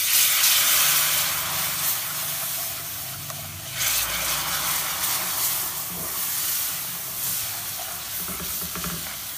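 Hot sugar syrup poured into a pan of ghee-roasted gram flour and semolina, hissing and sizzling loudly as it hits the hot fat. A second surge of sizzling comes about four seconds in as more syrup goes in, then the hiss gradually dies down under the stirring spoon.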